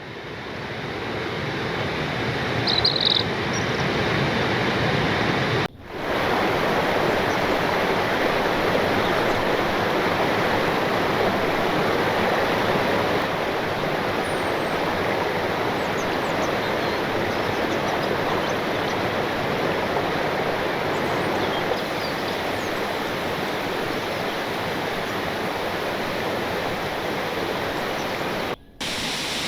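Waterfall: a steady, dense rush of falling water. A brief high chirp comes about three seconds in, and the sound cuts out for a moment about six seconds in and again near the end.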